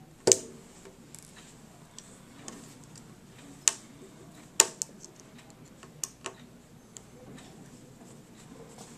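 Scattered sharp little clicks and taps, about six at uneven intervals with the loudest near the start, from a small precision screwdriver and tiny screws while the inner screws of an iPhone 3GS are being taken out.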